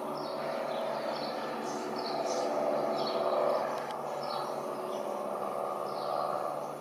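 Robin DR400/180R's four-cylinder piston engine droning steadily as it tows a banner overhead. Birds chirp in short calls several times over it.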